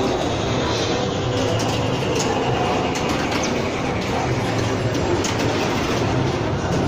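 Steady clattering din of a room full of pinball machines, with scattered sharp clicks and knocks from their mechanisms.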